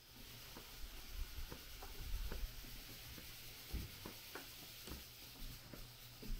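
Scattered light taps and clicks over a faint steady hiss, with a few soft low thumps.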